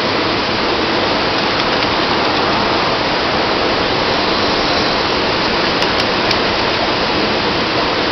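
Waterfall and fast white water rushing in a steady, loud, even roar of water noise.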